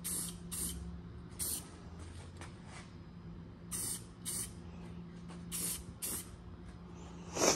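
Aerosol spray-paint can hissing in short bursts, about seven quick passes, as a second coat of black paint goes onto steel rock sliders. A steady low hum runs underneath, and a louder rush of noise comes just before the end.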